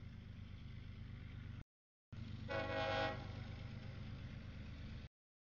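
Diesel freight locomotive approaching a grade crossing with a steady low rumble. About two and a half seconds in it sounds one short horn blast. The audio cuts out briefly twice.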